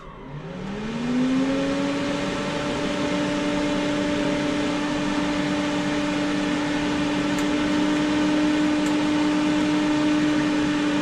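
Parweld XTM 211Di MIG welder whirring as a motor inside it spins up: a hum rises in pitch over about a second, then runs steadily with an airy hiss. Two faint ticks come in the second half. There is no welding arc.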